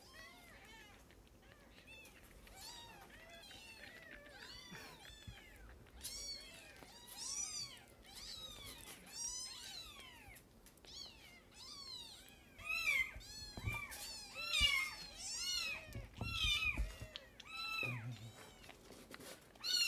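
Newborn kittens mewing over and over in short, high, thin cries, the calls coming faster and louder in the second half, with a few dull low bumps near the end.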